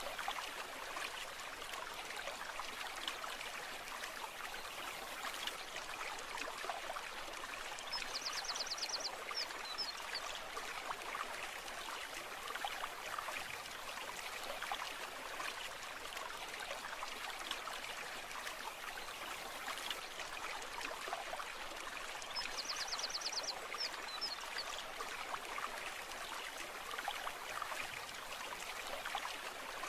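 Brook flowing steadily, a continuous trickle and rush of water. A short, rapid, high-pitched trill comes twice, about a quarter of the way in and again about three-quarters through.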